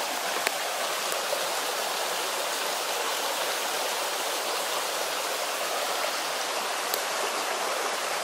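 Small rocky woodland brook running and pouring out of a corrugated culvert pipe: a steady rush of water.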